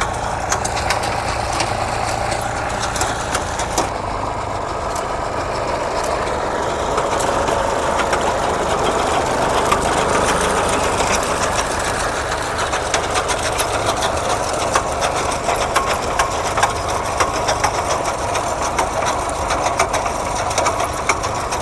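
Massey Ferguson 135 tractor engine running steadily while it pulls a hay turner, with many light clicks and rattles over the hum.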